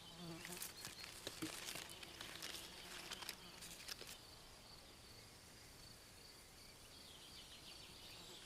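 Faint outdoor woodland ambience: a steady, faint high-pitched tone, with scattered light scratches and rustles over the first four seconds.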